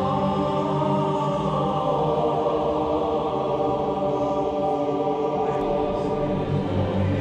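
Choral music: voices holding long, slowly changing chords.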